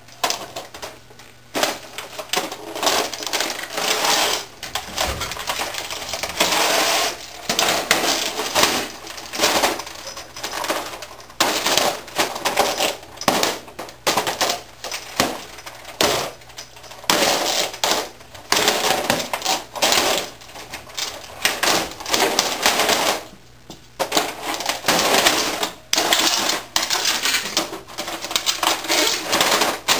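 Boots stomping and grinding on an old 1980s word processor: its plastic casing cracks and crunches and loose parts clatter, in irregular bursts with short pauses between.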